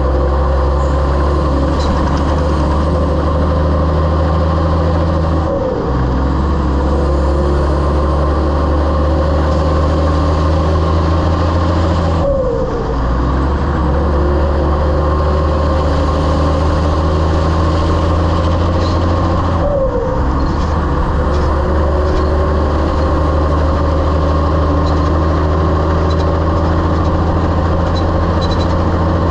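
Heavy-haul semi truck's diesel engine running steadily under load. Three times, about seven seconds apart, the engine note briefly drops and then picks up again, as at gear changes.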